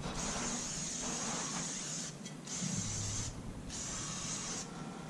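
Aerosol can of dry lube hissing through its red extension straw onto a shotgun handguard, in three bursts with short pauses between them.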